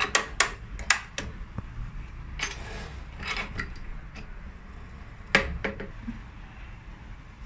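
Clicks and knocks of a toggle clamp and a wooden workpiece being repositioned on the aluminium table of a tenoning machine: a quick run of sharp clicks at first, two brief scrapes, and one loud knock about five seconds in, over a low steady hum.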